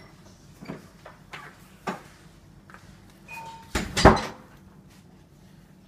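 Footsteps on a hard floor, then two loud thumps close together about four seconds in, over a low steady hum.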